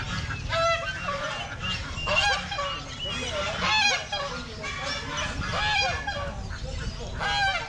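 Poultry at a bird market calling: several loud, harsh calls, about one every second or two, each rising and falling in pitch.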